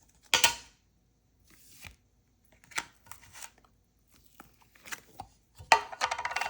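Scattered clicks, taps and crackles of plastic slime containers being handled, with a louder crackly burst about half a second in and a denser run of crackles and squeaks near the end.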